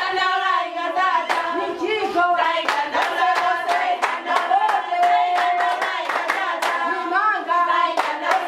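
A group of voices singing a song, with steady rhythmic hand clapping about three claps a second.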